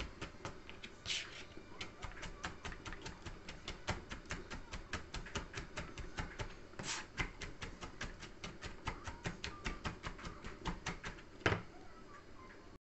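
Chef's knife rapidly mincing garlic, red chilies and herbs on a plastic cutting board: a steady run of quick taps, about five or six a second, with one louder knock near the end.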